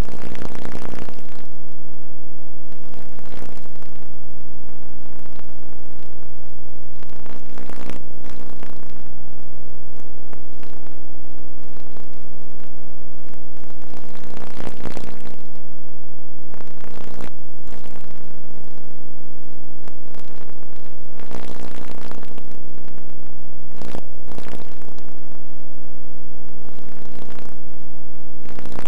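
Loud, steady buzzing hum made of several held tones, broken every few seconds by brief bursts of crackling noise.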